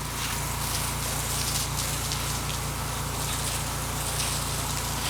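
Pressure washer running steadily: a constant low machine hum under the hiss of the high-pressure water spray striking the house.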